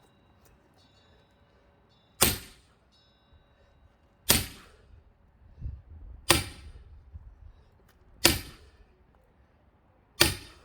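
Five heavy axe blows into a thick pine log being split for firewood, about two seconds apart, each a sharp crack with a short ring after it.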